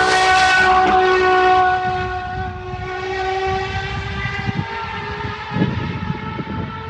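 GMA T.50s's Cosworth V12 going past at speed. Its high-pitched note has just dropped in pitch as the car went by, and it holds steady while growing quieter after about two seconds as the car pulls away. A few low thumps come near the end.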